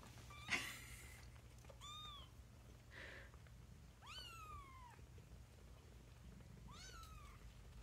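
Newborn kittens mewing faintly: three thin, high cries, each rising then falling in pitch, the middle one the longest. A brief rustle or thump about half a second in is the loudest sound.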